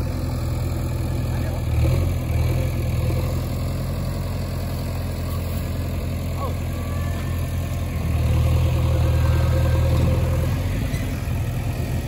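JCB 3DX backhoe loader's diesel engine running steadily at idle, growing louder for about three seconds near the end before settling back.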